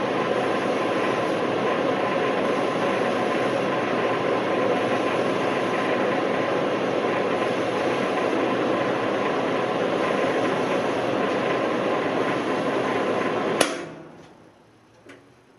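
Lincoln Idealarc 250 transformer welder switched on and idling, its transformer hum and cooling fan making a loud, steady rush. Near the end a sharp click as the power is switched off, and the fan winds down.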